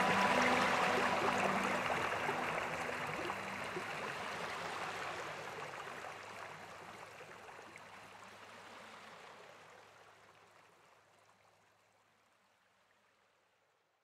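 Gentle sea waves washing onto a sandy beach, a steady rush of surf that fades out to silence about twelve seconds in.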